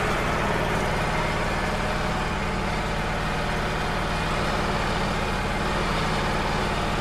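Wood-Mizer LT35 hydraulic sawmill's engine idling steadily, an even low drone.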